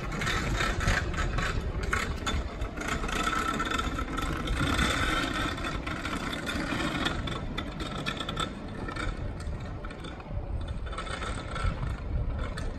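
A pickup truck's engine running at low speed as it tows a stripped Prevost bus shell, with the shell and its tow rig rattling and clanking as they roll.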